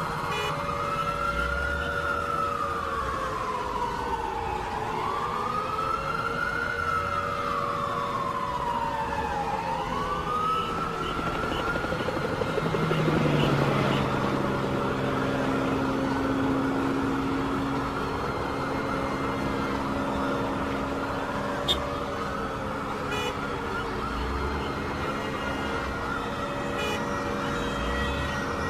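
Emergency vehicle siren wailing, its pitch rising and falling about every four to five seconds. About halfway through, a lower steady tone drops in pitch slightly and then holds, while fainter wails continue under it.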